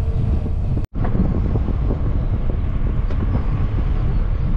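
Wind noise buffeting the microphone of a camera riding along on a bicycle, steady and heaviest in the low end, broken by a brief dropout just under a second in.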